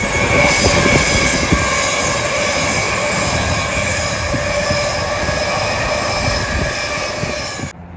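Train running past close by: loud, steady rail noise with a few sustained tones over it. It cuts off abruptly near the end.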